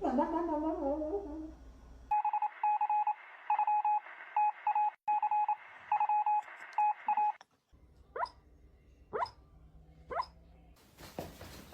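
A wavering, warbling pitched sound for about two seconds. Then a stuttering run of short electronic beeps like telephone keypad tones, followed by three quick rising whistle-like sweeps.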